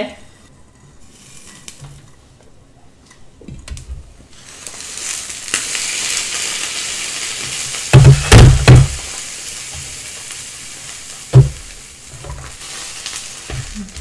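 Roti canai and eggs frying in ghee in a pan. The sizzle grows loud about four seconds in as the lid comes off. A few heavy clunks come around eight seconds as the pan lid is set down on the steel counter, and a single knock follows a few seconds later.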